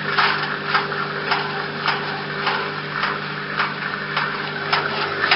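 Washing machine drum turning with its motor humming steadily, while a loose object thrown into the open drum knocks against it about twice a second.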